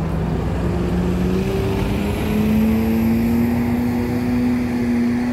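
A vehicle accelerating: its motor note rises in pitch over the first two and a half seconds or so, then holds steady.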